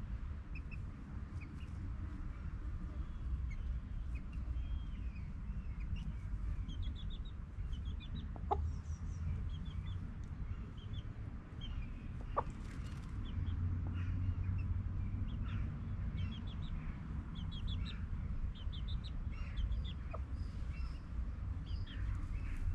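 Domestic chickens clucking, many short repeated calls, over a steady low rumble, with a few sharp clicks about a third and halfway through.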